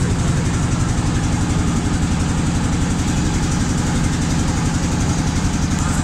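A boat's inboard engine running steadily under way: an even, low drone with a fast regular pulse, heard on board the boat.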